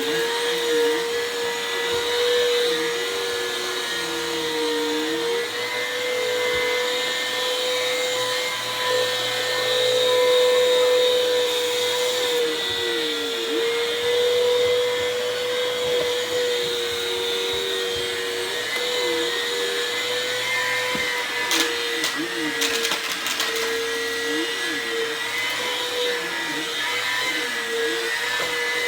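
Vacuum cleaner running steadily with a high motor whine, and a lower tone that keeps dipping and rising. A short spell of rattling clicks comes about three-quarters of the way through.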